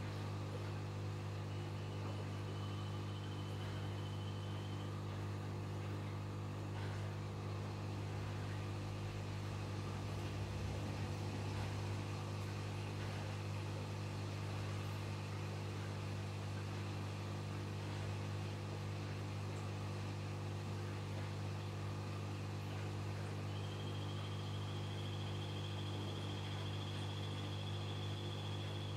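Aquarium pump running with a steady low hum. A faint thin whine sounds early on and again for the last few seconds.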